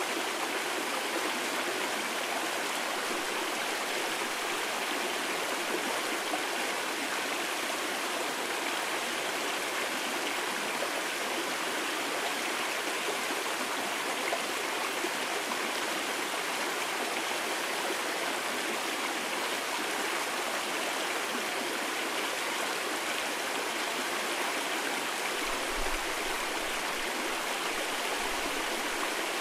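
Mountain valley stream rushing over rocks, a steady, unbroken wash of water.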